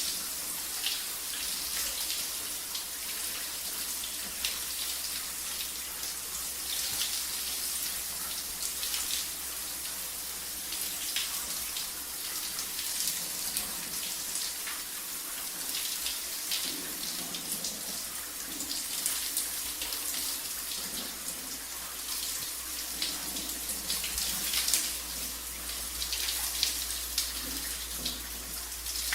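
Shower water running steadily, a continuous hiss of spray with irregular spatters as it hits the surfaces below.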